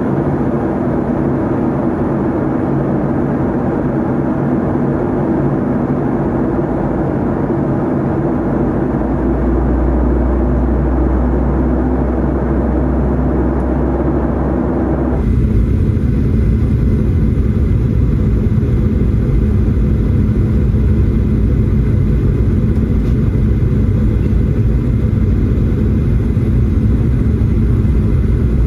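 Inside the cabin of a Boeing 737-800: steady jet engine and airframe noise with a low hum. About halfway through it changes suddenly to a louder, deeper rumble.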